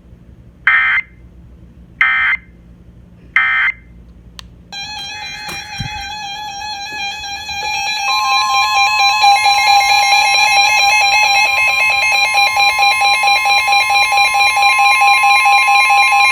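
Emergency Alert System header: three short screeching digital data bursts about a second and a half apart. These mark the start of a flash flood warning. They are followed by a loud, steady electronic alert tone with a pulsing edge, and a second, higher tone joins about eight seconds in.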